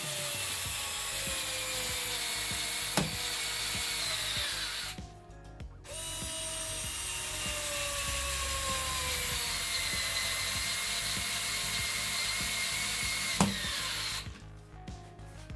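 Topshak TS-ESD1 4 V cordless screwdriver driving 30 mm wood screws into particleboard without a pilot hole, in two long runs with a short pause between. The motor's whine drops slowly in pitch as it slows under the load, and a sharp click comes once in each run.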